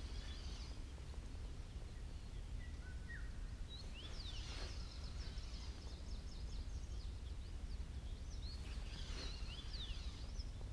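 Small birds chirping in the background, with clusters of quick high chirps about four seconds in and again near the end, over a low steady outdoor rumble.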